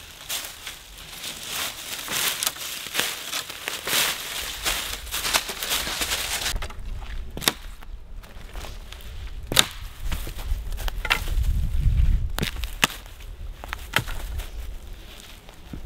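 Dry leaf litter crunching and rustling as sticks are gathered for firewood, dense for the first six seconds or so, then thinning to scattered sharp snaps and cracks of twigs and branches.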